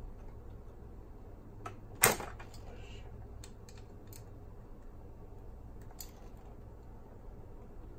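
Small clicks of plastic and metal parts being handled in an opened cassette deck mechanism, with one sharper clack about two seconds in and a few lighter ticks after it.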